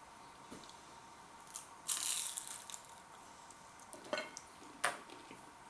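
Chewing a crisp fried vegetable net cone: a short crunchy burst about two seconds in, then two brief clicks near the end.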